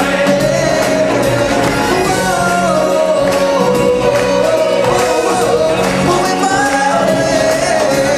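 Music from a live stage show: voices singing a melody together over a band accompaniment with a pulsing bass.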